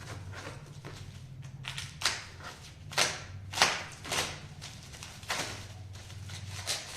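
Packaging being handled and opened during an unboxing: a string of about six short, sharp rustling rips and scrapes, the loudest about three and a half seconds in, over a low steady hum.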